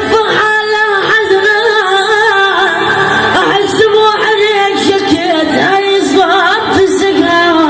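A solo voice singing an ornamented Arabic melody with wavering, trembling held notes over instrumental backing.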